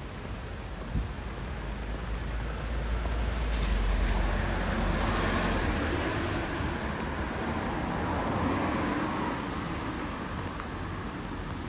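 A vehicle passing on a rain-wet road: a low rumble and tyre hiss swell up over a few seconds, peak a few seconds in, then fade, over a steady hiss of rain.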